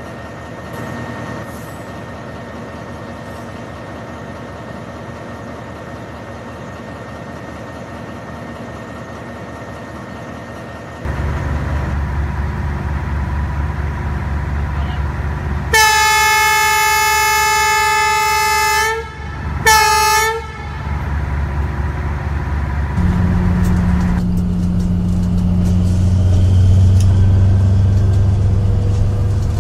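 A diesel train horn sounds one long blast of about three seconds, then a short second blast, over the running rumble of an approaching train. A low rumble comes in about a third of the way through and grows louder toward the end as the train draws near.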